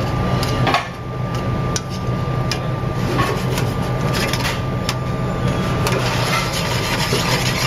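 Shrimp in butter sauce bubbling in a steel sauté pan over a gas burner, with scattered sharp clicks of metal tongs against the pan, over a steady low hum.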